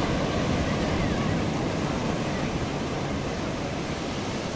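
Steady rush of wind and breaking surf, a dense, even noise with no distinct events, easing slightly near the end.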